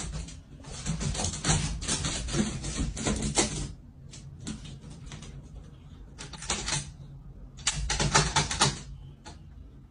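A dog's claws scratching rapidly at the mat and bedding in bursts of quick, scratchy clicks. The longest burst comes at the start and two shorter ones follow near the end.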